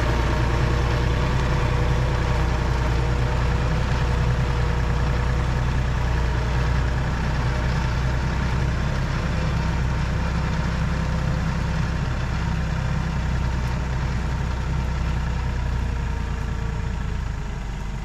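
Tractor engine running steadily while it pulls a middle buster plow through a potato row, with a faint steady whine over the engine's hum.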